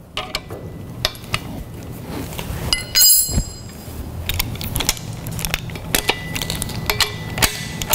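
Metal clinks and taps of steel bolts, nuts, washers and hand tools being handled against a steel-tube frame during assembly, with one brighter ringing clink about three seconds in.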